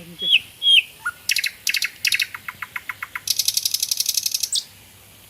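A songbird singing a varied phrase: three short whistled notes, then fast stuttering notes and a rapid high trill that stops about four and a half seconds in.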